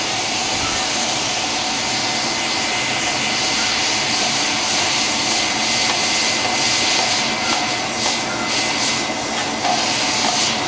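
Hot coil-spring steel punch held in tongs and quenched in a can of liquid, giving a steady, loud hissing sizzle with scattered crackles near the end. The quench stops the temper at the brown-to-straw colours.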